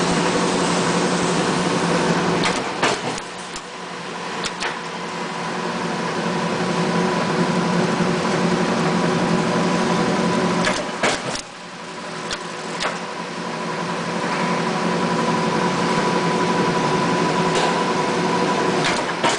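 Industrial chain link fence machine running with a steady mechanical hum. Twice, a cluster of sharp clicks comes as the sound drops away, and it then builds back up gradually.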